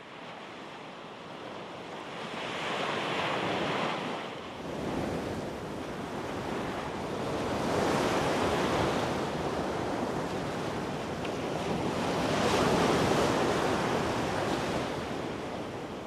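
Small waves breaking on a shallow sandy beach, the surf swelling and falling back every four to five seconds.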